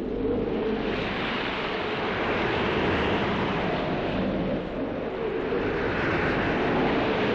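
Wind blowing off the sea: a steady rushing noise that swells about a second in and again near the end.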